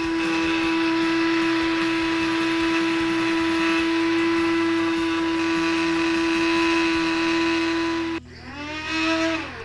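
Cuisinart electric spice grinder's motor running with a steady whine as its blade grinds tea leaves and whole spices into powder. It is released about eight seconds in and winds down with a falling pitch.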